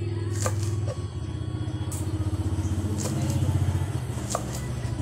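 A small engine runs steadily in the background, with an even low hum. Over it, a kitchen knife chops greens on a wooden board, several sharp knocks spaced irregularly.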